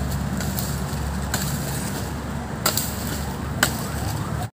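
Steady low rumble with a few short, sharp clicks, about one and a half, two and a half and three and a half seconds in; the sound cuts off abruptly near the end.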